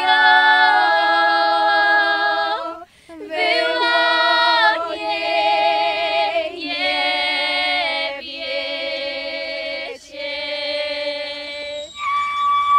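Group of women and girls singing a Polish highlander (góral) folk song a cappella in several voices, in phrases of long held notes with a short breath break about three seconds in. The group singing ends shortly before the end.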